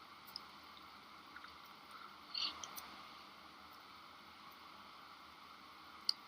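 Near silence: faint steady background hiss with a few small, faint clicks, one cluster about two and a half seconds in.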